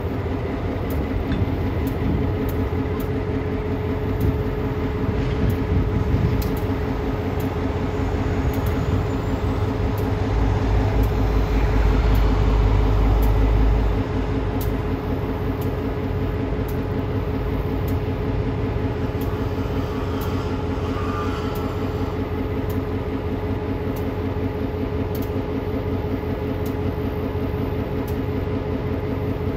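Diesel locomotive idling with a steady hum. A deep low rumble swells for about four seconds near the middle, then drops back.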